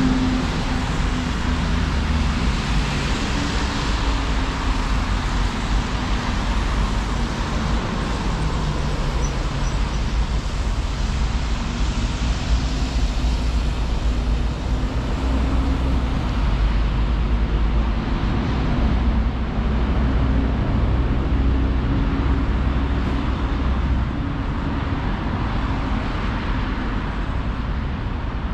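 City street traffic: a steady rumble and hiss of vehicles, with the hum of engines running close by.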